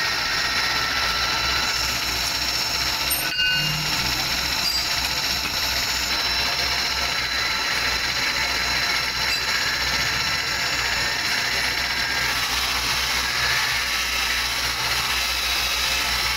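Electric-motor-driven grinding wheel running steadily with a high whine, grinding a large steel bearing ring to refinish it. A single click about three and a half seconds in.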